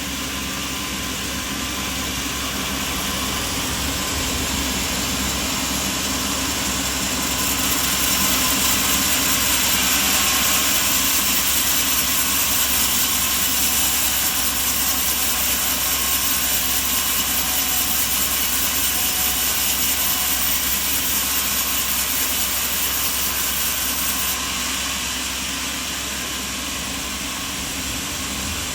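Sawmill machinery running steadily with a low hum. About eight seconds in it grows louder and hissier and holds there until a few seconds before the end, when it drops back.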